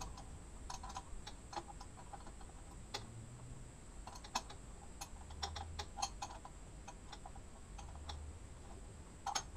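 Faint, irregular metallic clicks and ticks from a hand wrench working the motorcycle's lower fork clamp bolts, with a couple of soft low thuds.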